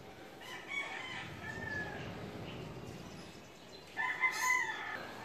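A rooster crowing twice: a fainter crow near the start and a louder one about four seconds in.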